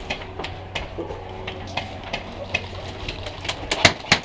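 Airsoft guns firing: scattered sharp shots, becoming a quicker, louder volley about three and a half seconds in.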